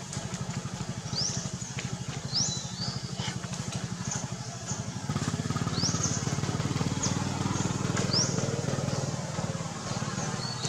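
A small engine running steadily, a little louder from about halfway, with short high rising chirps every second or so.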